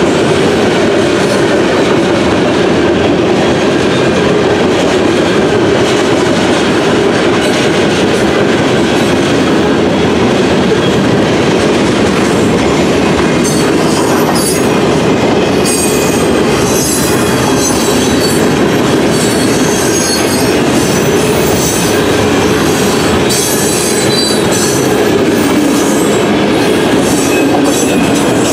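CSX mixed freight train cars (covered hoppers, gondolas and autoracks) rolling steadily past, wheels clattering over the rail joints. A high-pitched wheel squeal comes and goes through the middle and later part.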